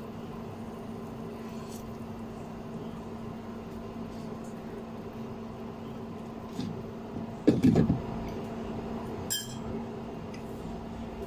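Glass pot lid with a steel rim clinking down onto a cooking pot, about two thirds of the way in, over the steady hum of an induction cooktop; a sharp click follows about two seconds later.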